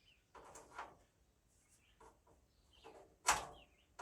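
A few faint high chirps from a small trapped bird, among soft rustling and scraping, with one sharp knock about three seconds in.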